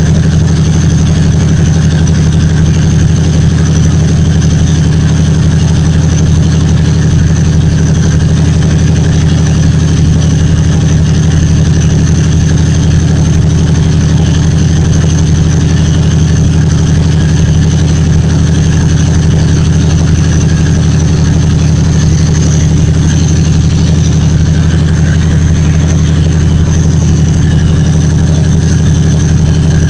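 2TE10M diesel locomotive's 10D100 two-stroke opposed-piston diesel engine running steadily under heavy load in a rheostat test, its output dumped into a resistor bank. A loud, steady deep drone with a thin, high whine over it.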